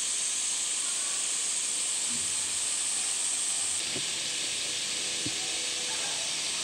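A steady high-pitched hiss of a summer cicada chorus droning, easing slightly about halfway through.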